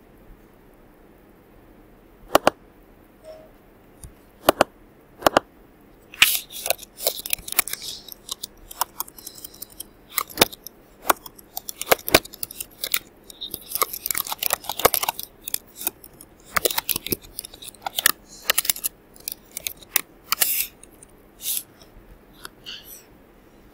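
Computer keyboard typing in quick, uneven runs of clicks, after a few single mouse clicks.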